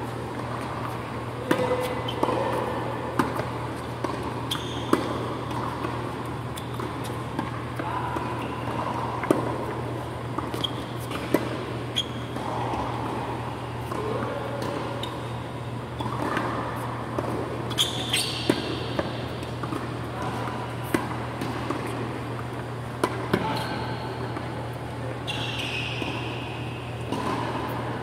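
Tennis rally on an indoor hard court: sharp pops of racket strikes and ball bounces at irregular intervals, over a steady low hum in the hall.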